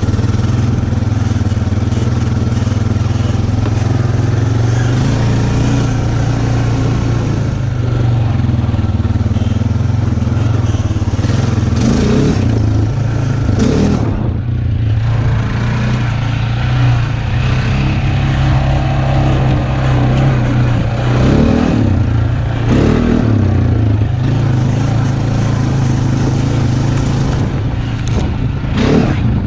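2008 Honda Rancher ATV's single-cylinder engine running steadily as the quad is ridden, with its pitch shifting a little now and then.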